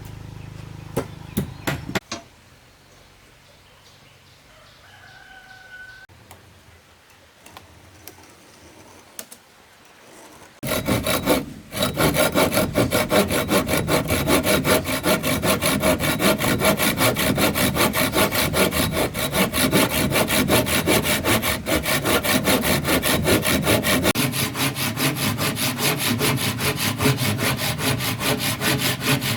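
Hand saw cutting through wood with fast, even back-and-forth strokes, starting about ten seconds in after a few knocks and a quiet stretch.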